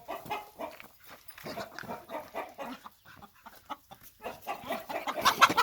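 Chickens clucking and scuffling in a pen, a string of short irregular sounds, with a louder flurry near the end.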